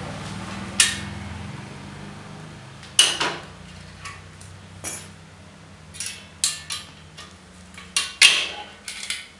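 Irregular sharp metallic clinks and scrapes of metal parts on a motorcycle exhaust pipe being handled, during removal of its silencer insert. They come in a loose cluster about six seconds in, and the loudest comes a little after eight seconds.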